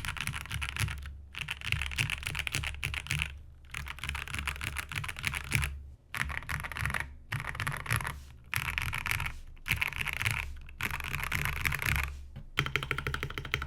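Fast typing on a custom mechanical keyboard, a Space65 CyberVoyager fitted with Akko double-shot keycaps: dense runs of keystroke clacks in bursts of one to two seconds, broken by short pauses.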